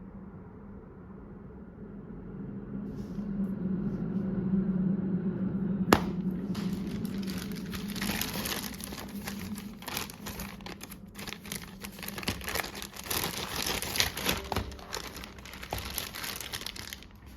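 A low steady hum builds over the first few seconds, then a sharp click about six seconds in, followed by packaging being handled: irregular crinkling and rustling as the laptop is packed back into its box.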